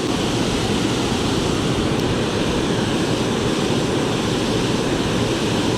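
Water pouring over a river dam's falls: a steady, unbroken rush of falling water.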